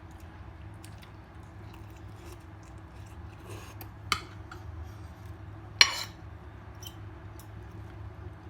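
Light clinks and taps of tableware during a meal, with two sharper clicks about four and six seconds in, over a steady low hum.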